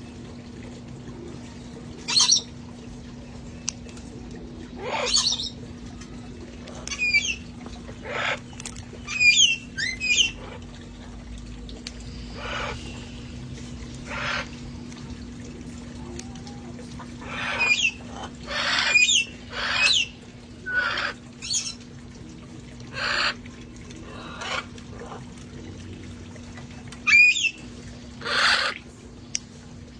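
A flock of parrots squawking and calling, with loud, harsh calls at irregular intervals, sometimes several in quick succession, over a steady low hum.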